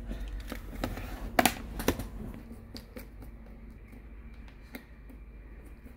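Clicks and knocks from handling an opened laptop's plastic and metal chassis, with a pair of sharp knocks about a second and a half in and another just after. Then faint small ticks of a precision screwdriver driving screws into the motherboard.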